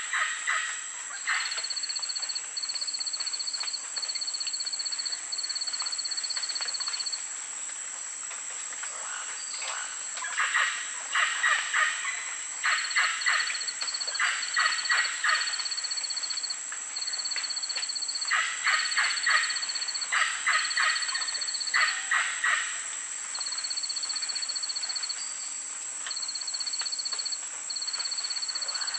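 Outdoor wildlife ambience: runs of rapid, chattering bird calls, loudest in several bouts through the middle of the stretch, over a steady high insect whine and a repeated pulsed insect trill.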